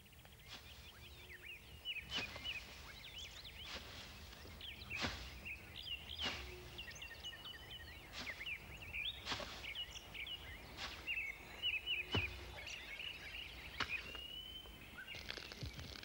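Machete chopping through brush, about ten sharp strokes spaced a second or two apart, with small birds chirping throughout. A steady hiss begins near the end.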